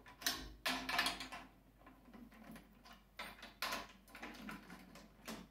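Drum keys turning the tension rods of a 13-inch tom, loosening them towards finger tight. A series of short, irregular metallic clicks and scrapes, with the drum head ringing faintly about a second in.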